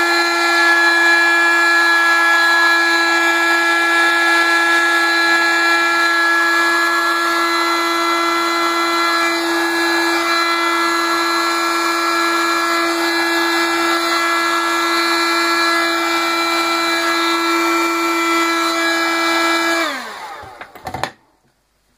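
Handheld heat gun running with a steady pitched motor-and-fan hum while shrinking heat-shrink tubing onto a strap. It is switched off about two seconds before the end and winds down.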